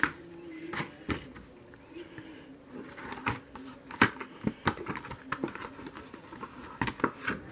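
Light, scattered clicks and taps from handling a stiff glossy photo-display board and other packaged items, the sharpest about four seconds in and again near the end.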